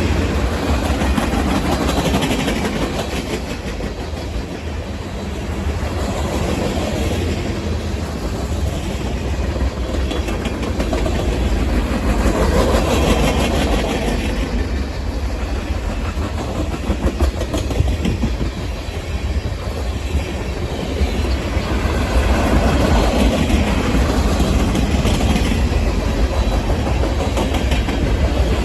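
Union Pacific manifest freight train rolling past, a steady rumble with wheels clacking over the rail joints and the noise swelling and easing as the cars go by.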